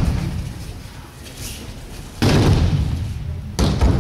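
Judo throws landing on tatami mats: two heavy slams, one about two seconds in and another near the end, each with an echoing tail, as a thrown partner hits the mat in a breakfall.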